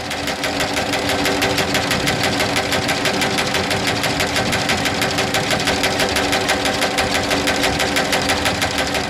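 Electrically driven combine side knife running: the vertical reciprocating cutter blade makes a fast, even mechanical clatter of several strokes a second.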